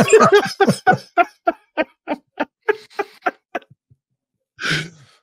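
A man laughing in a long run of short, rhythmic bursts, about three to four a second, that trail off after about three and a half seconds.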